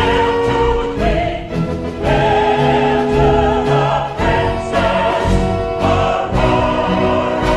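A choir singing with an orchestra, holding long chords that change about every second.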